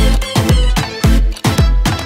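Upbeat dance music with a deep, steady kick-drum beat, about two beats a second.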